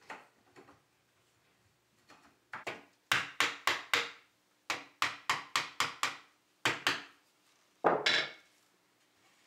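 Wooden mallet knocking on the pine frame of a wooden saw vise. It strikes in quick runs of several blows a second, with one heavier blow near the end.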